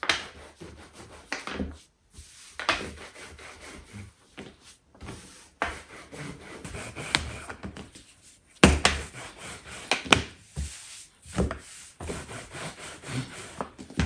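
Irregular scraping and rubbing on wood with scattered knocks, as of food being worked on a wooden board.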